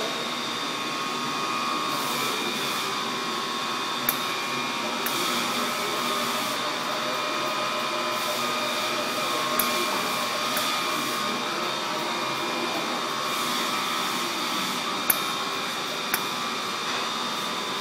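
Steady mechanical whine and hum of a Toshiba THL700 SCARA soldering robot cell at work, with four short sharp clicks spaced a few seconds apart.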